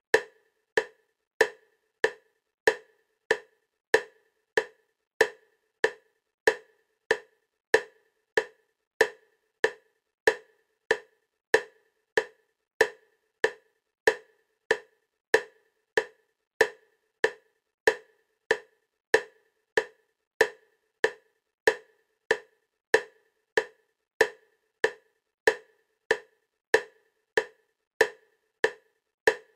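EMDR bilateral stimulation clicks: short, wood-block-like clicks at a steady 96 beats a minute, a little over one and a half a second, alternating side to side.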